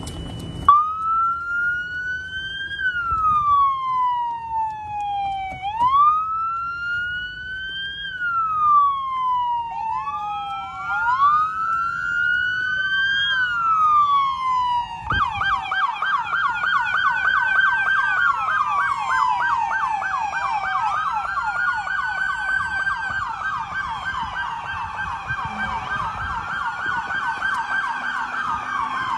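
Emergency vehicle sirens, one starting about half a second in, then several overlapping, rising and falling in slow wails. About halfway through, a fast yelp joins the wails.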